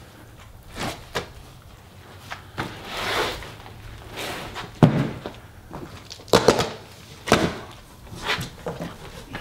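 A large cardboard shipping box and its packaging being handled and opened: a run of irregular knocks and thumps, with a longer rustle about three seconds in.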